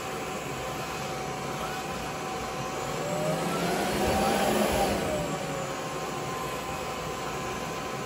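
Bissell ICONpet 2291A robot vacuum running at a raised suction setting: the steady whine and rush of its cyclonic digital suction motor, which swells and bends in pitch for a moment about halfway through.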